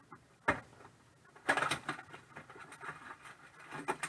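Plastic wrap crinkling and tearing as a trading card blaster box is opened and its packs are pulled out. A sharp knock comes about half a second in, and a louder burst of crinkling comes about a second later.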